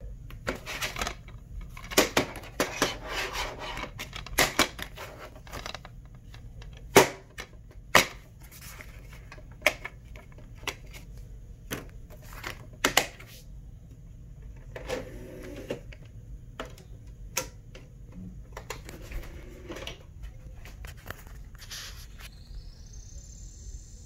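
Hard plastic DVD case being handled and opened, with a run of sharp clicks and snaps as the case and the disc hub release. Near the end a high whine rises and then holds as the DVD player spins the disc up to read it.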